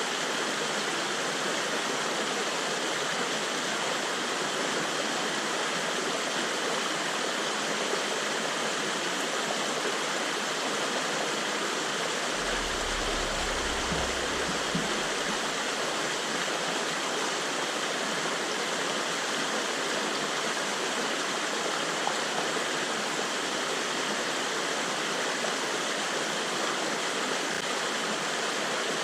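Steady rush of flowing river water, with a brief low rumble about halfway through.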